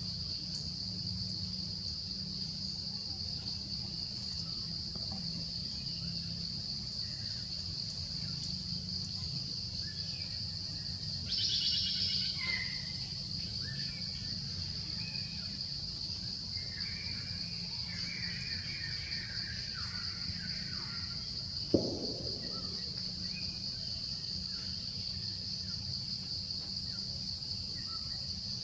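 Steady high-pitched insect chorus over a low background hum. Bird chirps come in briefly around the middle, and there is one sharp click about three quarters of the way through.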